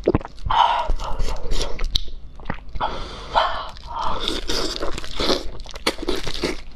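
Close-up mouth sounds of eating soft, fatty fish by hand: wet sucking and slurping on the flesh, with chewing and smacking clicks at irregular intervals.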